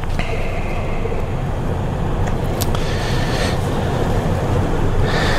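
Steady rumbling background noise with no words, and a couple of faint clicks about halfway through.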